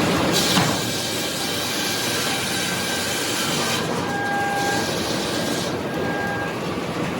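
Sawmill machinery running steadily with a rattling mechanical din. A high hiss comes in at about a third of a second and drops out before four seconds, returns briefly near six seconds, and thin high squeals sound on and off.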